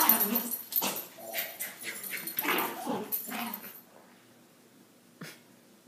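Two small dogs vocalizing as they play-fight, with short, pitched dog noises one after another that stop about four seconds in. Near the end there is a single click.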